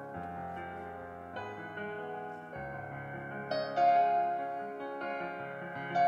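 Background piano music: sustained chords changing every second or so.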